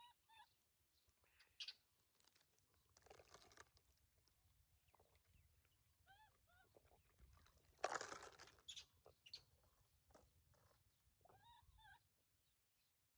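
Faint short chirping calls in small groups, at the start, about six seconds in and near the end, with bursts of rustling or crunching between them; the loudest is a rustle about eight seconds in.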